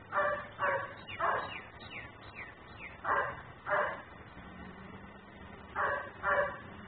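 A German Shepherd barking in three bouts: three barks, then two, then two, a couple of seconds apart. It is a dog left outside in the yard, barking on and off.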